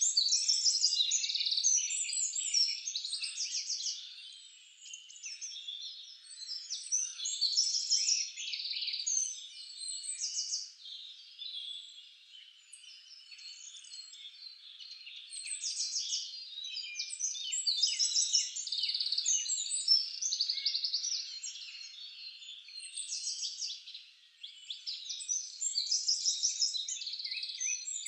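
A dense chorus of high chirps and rapid trills from small animals, overlapping and swelling and fading in loudness every few seconds.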